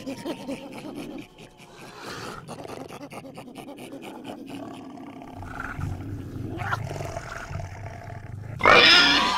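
A creature's growling and roaring, a film sound effect, with a low rumble coming in about halfway through and a sudden loud roar near the end.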